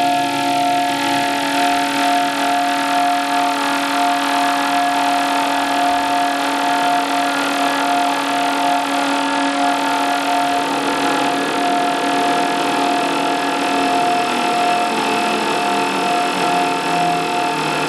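Experimental electroacoustic drone from electronics and prepared zither: several held tones over a dense, steady wash of noise. A lower tone fades out about two-thirds of the way through.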